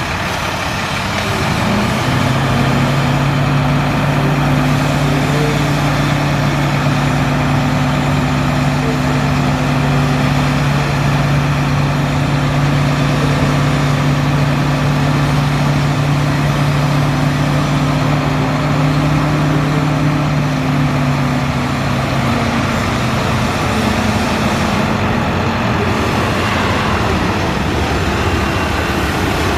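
2011 International 4300 dump truck's diesel engine running while its hydraulic hoist raises the dump bed, a steady hum that steps up about two seconds in and drops back about 22 seconds in.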